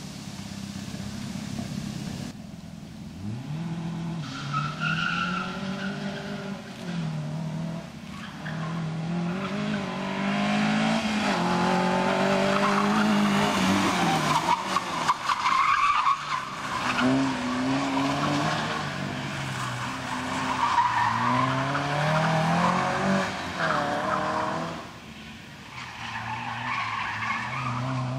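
Small hatchback cars driven hard around cones on concrete. The engines rev up and drop back again and again through gear changes and lifts, with tyres squealing and skidding in the tight turns.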